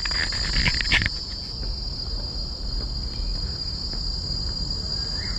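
A chorus of insects trilling steadily at a high pitch, two unbroken bands of sound, over a low rumble, with a single click about a second in.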